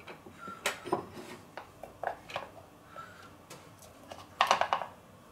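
Kitchen knife cutting a block of butter in a plastic butter dish: a scatter of light clicks and knocks as the blade meets the dish. A short, louder clatter comes about four and a half seconds in.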